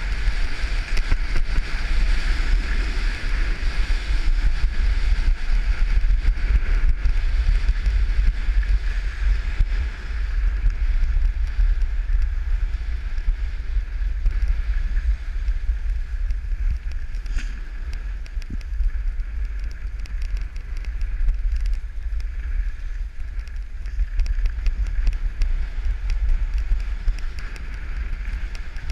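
Wind buffeting a head-mounted camera's microphone outdoors: a steady low rumble with a fainter hiss above it.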